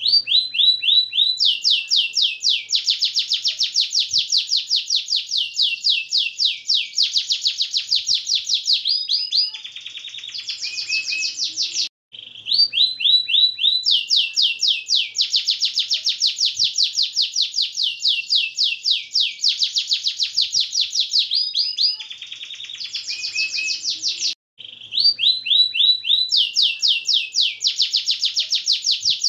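Domestic canary singing a long, fast rolling song: rapid high trills of repeated notes. The same phrase comes round about every twelve seconds after a short break.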